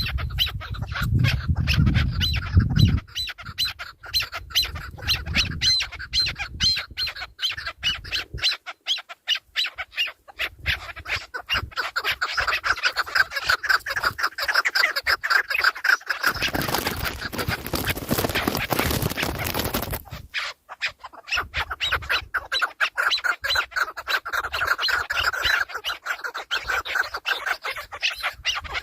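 Birds calling with fast, dense runs of repeated squawking notes, with a loud rushing noise about two-thirds of the way through.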